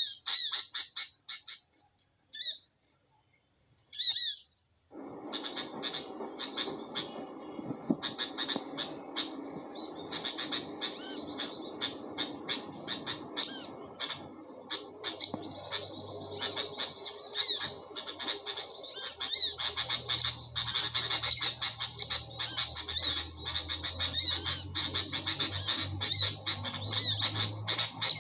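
Small-bird calls used as a trapping lure, played through a Bluetooth speaker: rapid, high, squeaky chirping that runs almost without a break. There is a short lull about two to five seconds in, after which a low steady hum sits underneath the calls.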